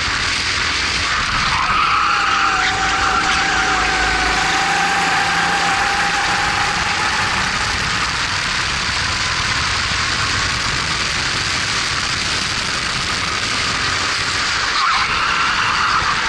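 Honda GX270 four-stroke single-cylinder kart engine at racing speed, heard onboard over a steady rush of wind. Its pitch drops as the kart slows for a corner about two seconds in, climbs slowly under throttle, then dips and rises again near the end.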